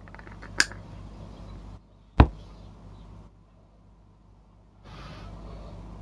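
Kizer ZipSlip titanium slipjoint knife being worked open by hand: two sharp metallic clicks as the blade snaps against its backspring, a small one about half a second in and a louder one about two seconds in. Soft rustling handling noise comes before and after the clicks.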